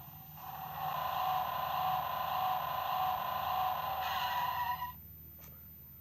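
Electronic engine-revving sound effect from a toy car's small speaker, held steady for about four seconds and cutting off near the end.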